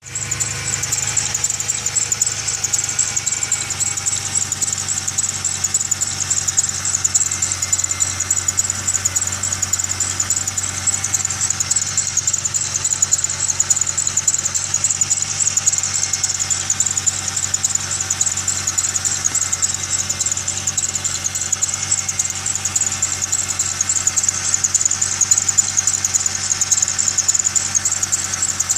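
Engine idling steadily with a continuous high-pitched squeal and chirp from the engine's accessory drive belt system.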